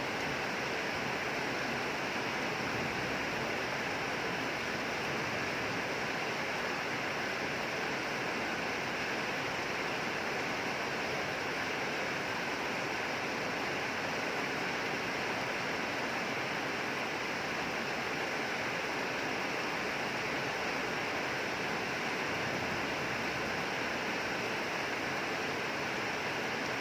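Steady rain falling: an even hiss that does not change or break.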